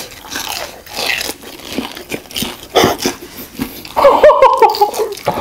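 Chewing and biting into deep-fried Korean hot dogs with a crumb coating and stretchy mozzarella filling, many short wet and crunchy mouth sounds, then a burst of loud laughter about four seconds in.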